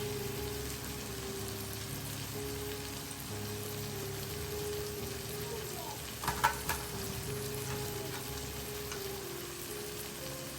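Vegetables sizzling in hot oil in a frying pan, with soft background music playing a slow melody of held notes. A few brief clatters come about six seconds in.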